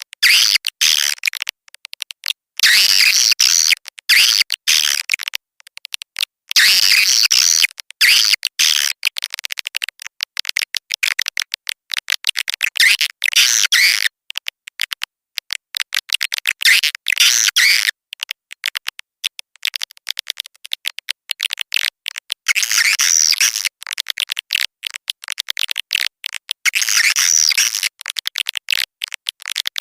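Swiftlet lure call: dense, rapid, high-pitched chirping and twittering of swiftlets, in stretches of a second or two with short gaps, over and over. It is the call that bird's-nest farmers play to draw swiftlets into a nest house.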